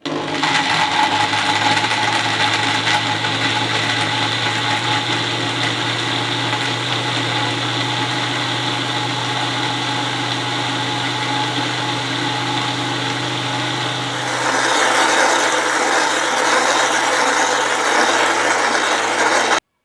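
Electric blender motor running steadily, blending mango pieces with water into juice. About fourteen seconds in the sound grows a little louder and hissier, and it stops abruptly near the end.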